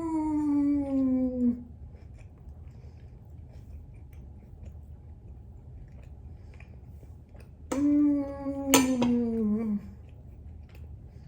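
A woman's long, falling "mmm" of enjoyment while eating, heard twice: once at the start and again about eight seconds in, the second with a sharp click in it.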